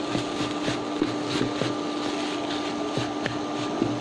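Wooden spatula stirring and scraping a stir-fried filling around a nonstick pan, in strokes about twice a second, over a steady hum.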